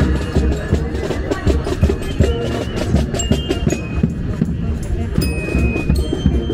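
Parade music with drumming, playing continuously over the voices of the crowd.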